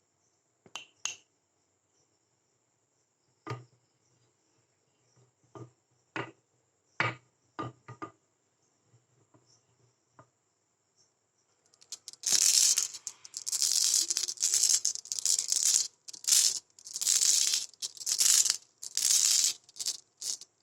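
Marbles running down a handmade course of rain-gutter and wooden-rail sections: a few scattered clicks at first, then from about twelve seconds in a loud stretch of rolling and rattling in short runs with brief gaps between them.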